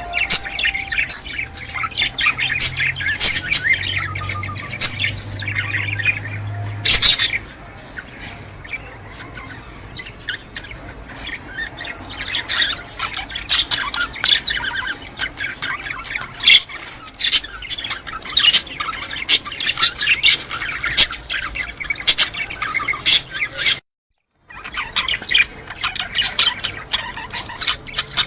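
A flock of small cage birds chirping and chattering densely with short squawky calls, played as a breeding-stimulation recording meant to put pairs in the mood to mate. The chatter thins out for a few seconds about a third of the way through and cuts out completely for about half a second near the end.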